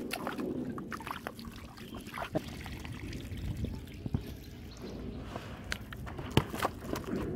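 Muddy water sloshing and trickling in a plastic basin as live fish are put in and thrash, with scattered sharp splashes and knocks against the plastic, the loudest near the end.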